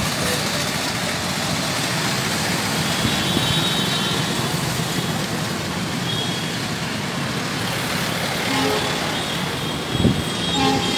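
Busy street traffic below: motorcycles, cars and auto-rickshaws passing in a steady mixed hum and hiss, with faint horns and a short low bump about ten seconds in.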